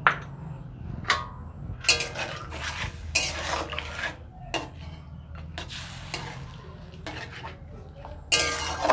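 Metal spatula stirring fish curry in a steel kadai, with irregular clinks and scrapes against the pan, some ringing briefly.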